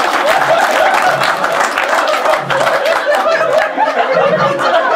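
Audience laughing, with scattered claps over the first few seconds.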